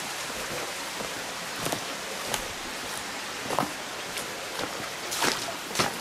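Shallow forest stream running steadily over stones, with a handful of crunching footsteps on wet leaf litter, twigs and gravel along the bank.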